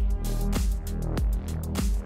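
Electronic background music with a steady beat: regular drum hits over heavy bass notes.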